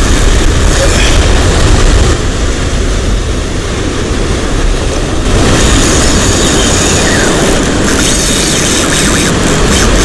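Strong wind buffeting the microphone as a loud, uneven rushing rumble, rising a little about five and a half seconds in.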